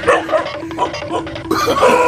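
A dog barking in alarm after waking, over background music.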